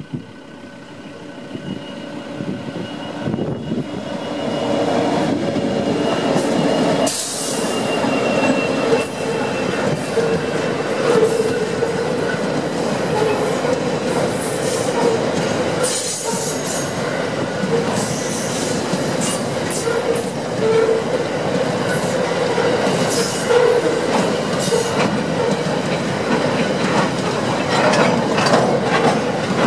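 Freight train passing close by: the sound swells over the first few seconds as the diesel locomotives arrive and go past, then the loaded wagons roll by with a steady rumble of wheels on rail, a ringing wheel squeal, and scattered sharp clicks and clanks.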